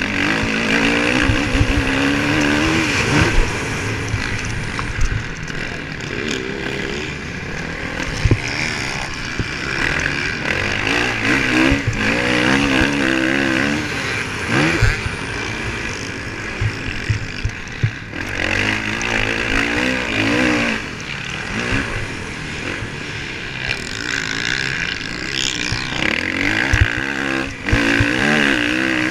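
Motocross bike's engine, heard from on board, revving hard and easing off over and over through shifts and corners as it races around the track. Rushing air runs underneath, with scattered sharp knocks.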